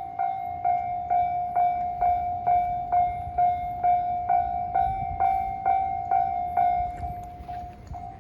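Japanese railway level-crossing warning bell ringing in quick, even dings, about two a second, over a low rumble from a passing train. The dings turn much fainter about seven seconds in.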